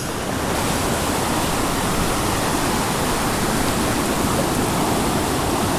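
Mountain creek rushing over rocks, a steady full water noise with no breaks.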